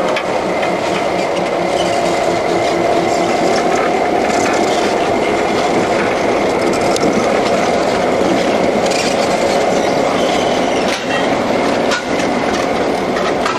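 Diesel train of Western Maryland-painted streamlined cab units passing close by, with steady engine and wheel-on-rail noise and scattered clicks from the wheels.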